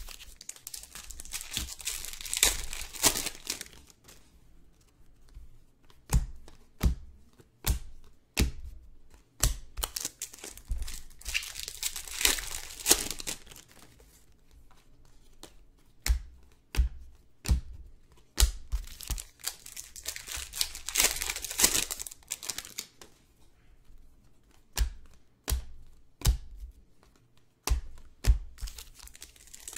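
Trading-card packs being torn open and their wrappers crinkled, in three long bursts about ten seconds apart, with sharp taps and clicks in between.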